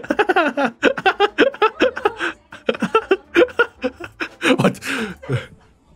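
A man laughing hard in quick, repeated bursts, several a second, easing off near the end.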